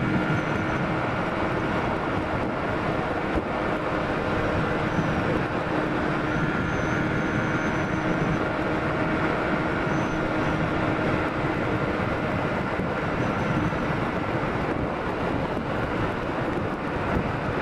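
Sport motorcycle cruising at a steady speed, its engine a steady drone under heavy wind rush on the microphone.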